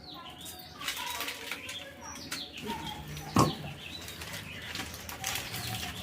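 Small birds chirping, over a run of quick rustling noises and one louder short sound about three and a half seconds in.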